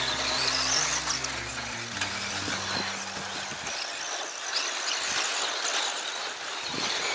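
Electric off-road RC buggies with 540-size brushed motors racing, their motors whining high and rising and falling in pitch as they speed up and slow.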